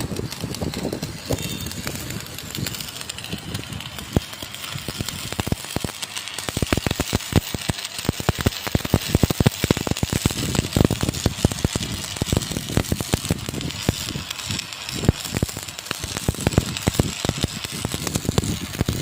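Stick-welding (arc-welding) electrode arc crackling continuously, a dense run of fast irregular pops over a steady hiss.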